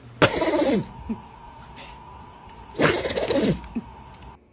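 A dog sneezing twice, a couple of seconds apart; each sneeze is a sharp blast of breath that drops quickly in pitch.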